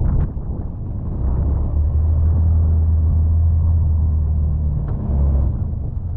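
Can-Am Defender side-by-side's engine running steadily with a low hum, which grows stronger about a second in and eases near the end.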